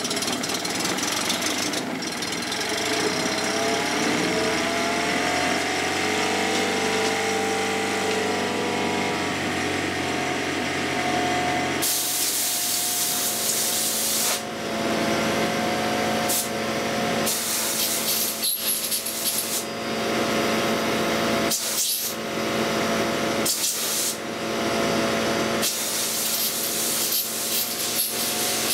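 Honda 15 hp four-stroke outboard running on a test stand, its speed rising and falling for the first several seconds, then holding steady. Its telltale is not passing water, a sign of a blocked telltale passage or a weak water pump. From about twelve seconds in, short bursts of hissing keep cutting in over the running engine.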